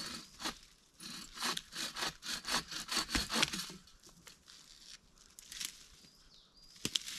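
Hand saw cutting wood in quick, even rasping strokes, about four a second for roughly three seconds, then stopping. A sharp click comes near the end.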